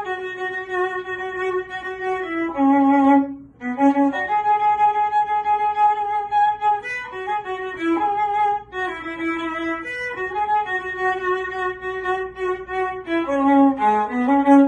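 Solo violin, bowed, playing a slow melody of long held notes with vibrato; there is a brief break about three and a half seconds in, and the notes move more quickly near the end.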